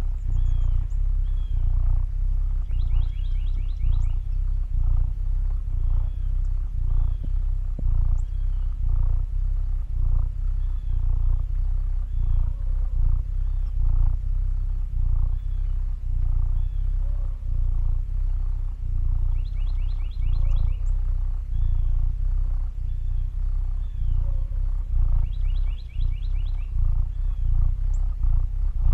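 Domestic cat purring: a low purr that swells and fades in a steady rhythm. A bird gives short rapid trills three times in the background, with small chirps between.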